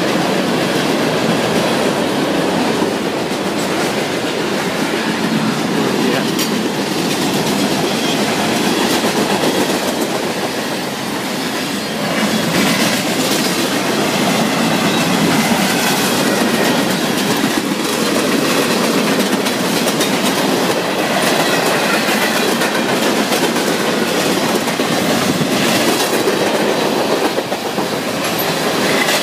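Freight cars of a Norfolk Southern manifest train rolling past at a crossing: a steady rumble of steel wheels on rail, with repeated clicking as the wheels cross the rail joints.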